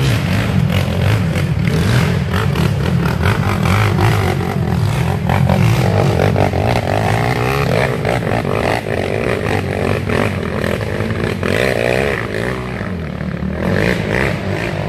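Racing ATV engines revving hard as quads climb a steep dirt hill, rising and falling in pitch with throttle, with several machines heard at once.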